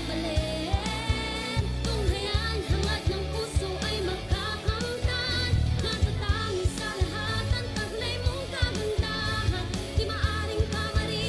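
Pop-style song in Filipino with a singing voice over a steady drum beat.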